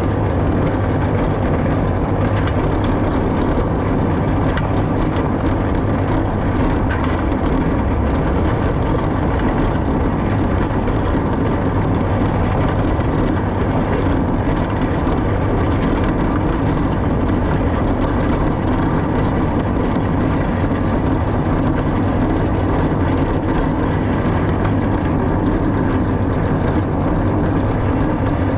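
New Holland forage chopper running under load behind a tractor, cutting grass and blowing the chopped grass out its spout into the wagon. The tractor engine and the chopper's cutterhead and blower make a loud, steady, even noise.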